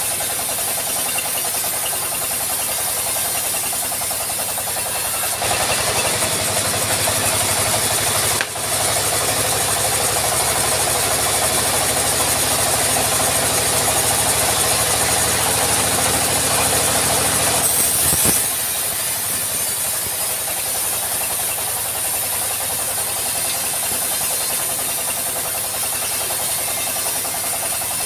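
Engine-driven band sawmill running steadily while a teak log is cut. About five seconds in the sound grows louder and fuller as the blade works through the log. About eighteen seconds in it drops back with a sharp click as the cut ends.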